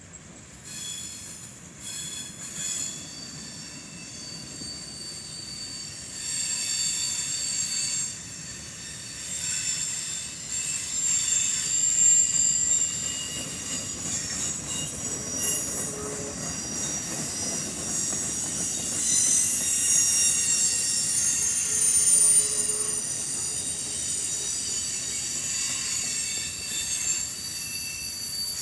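Freight cars rolling past a grade crossing: a low rumble of wheels on rail under a high-pitched wheel squeal, growing louder over the first dozen seconds.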